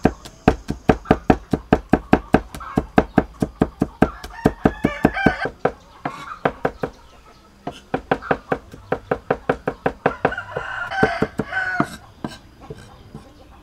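A heavy cleaver chopping garlic cloves on a thick wooden chopping block, in rapid strokes about five a second. The strokes slacken briefly around the middle, then pick up again and stop near the end. Chickens clucking and crowing can be heard over the chopping around the middle and near the end.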